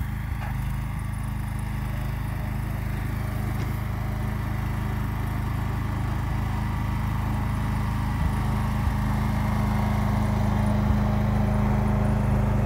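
John Deere garden tractor's engine running steadily while the tractor pushes snow with its front blade, growing louder as it drives up close.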